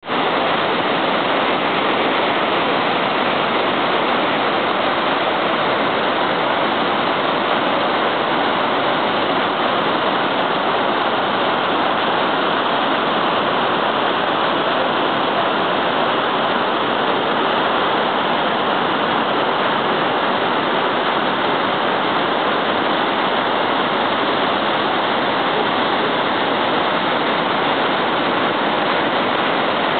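River water rushing over rocky rapids and waterfalls: a loud, steady rush of water with no breaks.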